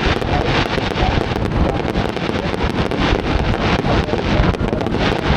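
Wind buffeting the microphone: a loud, steady rumble and hiss, with many small crackles.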